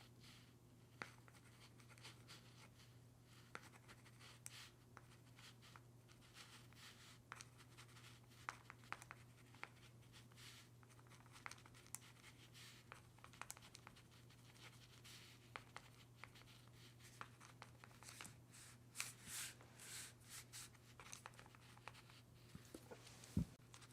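Faint handling noises: scattered light clicks, scratches and rustles of objects being handled, with a busier stretch of rustling about three quarters of the way through and one sharp click near the end, over a steady low hum.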